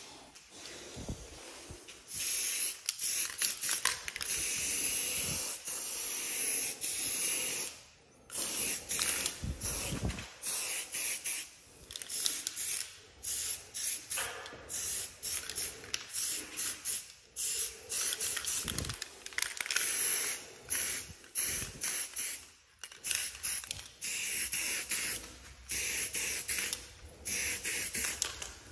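Aerosol spray paint can spraying onto a wall in a series of hissing bursts, some short and some held for a couple of seconds, starting about two seconds in.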